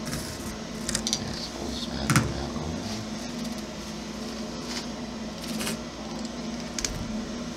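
A handful of light, scattered clicks and knocks as hands handle tools and RC truck parts on a cardboard-covered workbench, over a steady low hum.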